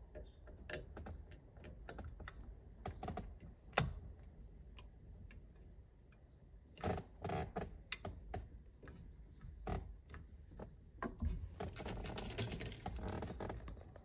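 Faint scattered clicks and taps of a plastic horn-button center cap being fitted and pressed into a steering wheel hub, with a sharper click about four seconds in and a stretch of rustling near the end.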